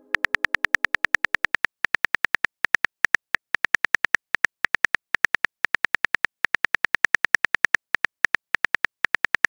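Virtual phone keyboard typing clicks from a texting-story animation, one short sharp click per letter, about eight a second, with brief gaps between words.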